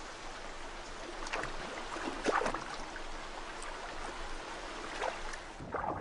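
Shallow stream water running and trickling, with a few small splashes.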